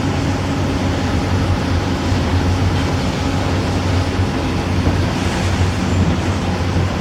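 Mercedes-engined Optare Solo M990 bus with Allison automatic gearbox running at a steady pace: a low, even engine drone with a faint steady whine above it.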